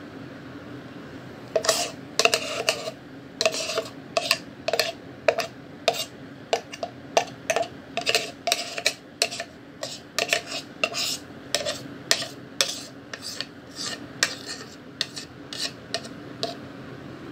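Metal spoon scraping and knocking against a clear plastic blender bowl as thick banana ice cream is scraped out, a sharp clack about twice a second that starts about a second and a half in.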